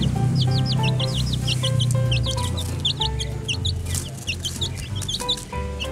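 Baby chicks peeping: a rapid, continuous run of short, high, falling peeps, several a second, over soft background music.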